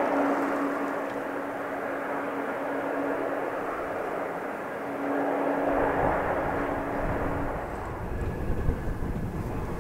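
Airbus A220-300's Pratt & Whitney PW1500G geared turbofans running as the jet moves along the runway: a steady hum over a broad rush of jet noise. About six seconds in, a deeper low rumble comes in and the hum fades out.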